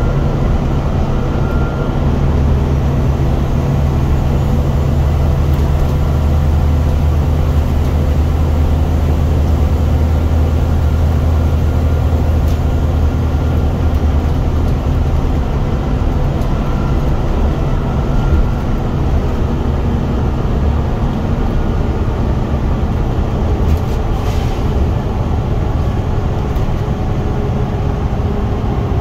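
Scania bus engine running hard under load, heard from inside the passenger cabin as a deep, steady drone. About halfway through the drone eases off a little.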